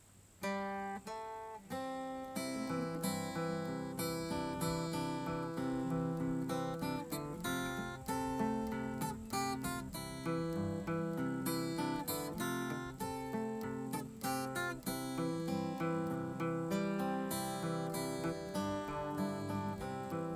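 Background music on acoustic guitar, plucked notes starting about half a second in and carrying on steadily.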